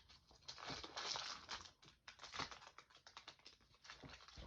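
Faint, irregular crinkling and crackling of a foil Yu-Gi-Oh booster pack wrapper being handled and opened, with a patter of small clicks.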